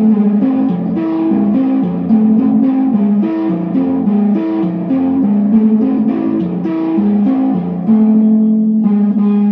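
Electric kalimba (thumb piano with a pickup) plucked in a quick run of melody notes, played through a fuzz, EQ, chorus and delay pedal chain into amplifiers. One note is held longer near the end.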